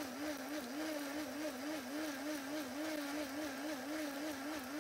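Personal blender motor running steadily, grinding tomatoes, ginger and garlic into a wet paste. Its hum wavers up and down in pitch about four times a second.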